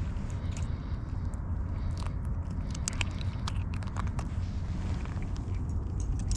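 Handling noise on a fishing kayak as a just-landed tautog is dealt with: scattered sharp clicks and taps over a steady low rumble.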